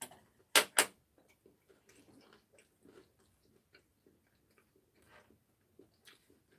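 Eating at a table: soft chewing and small clicks of chopsticks and ceramic bowls, with two sharp, loud clicks a little over half a second in.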